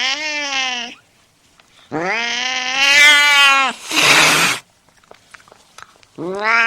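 Domestic cat caterwauling aggressively, as in a fight: three long, drawn-out yowls, the second followed by a hiss.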